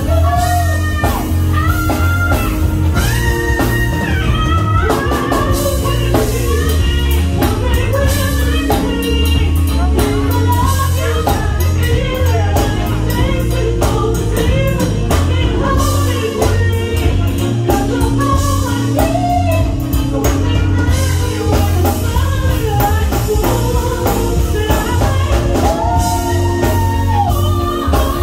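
Live band playing, with a woman singing lead into a microphone over drums, bass, electric guitar and saxophone.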